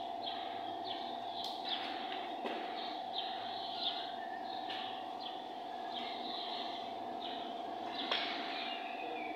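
Birds chirping in short repeated calls over a steady tone, with a few faint sharp clicks.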